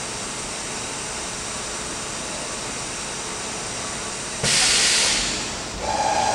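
Milltronics RH30 vertical machining center during an automatic tool change: a steady machine hum, then about four and a half seconds in a sudden loud burst of air hiss lasting about a second. Near the end a steady mid-pitched whine comes in with more hiss.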